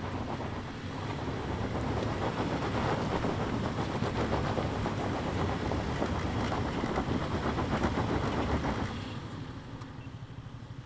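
Toyota 4Runner's V6 engine running as it crawls up a rocky trail, its tyres crunching and clattering over loose rock and gravel. The clatter eases off about nine seconds in.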